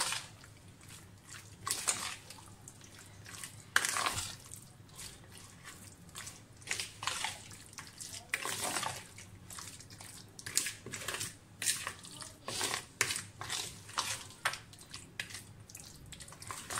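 A bare hand squishing and turning chunks of chicken in a thick yogurt-and-cream marinade in a plastic bowl: wet squelches at an uneven pace, coming faster in the second half.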